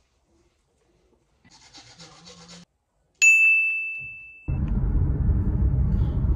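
A short rustle, then a single bright bell-like ding about three seconds in that rings and fades away over about a second. From about halfway through, a loud, steady low rumble of a car's cabin noise while driving takes over.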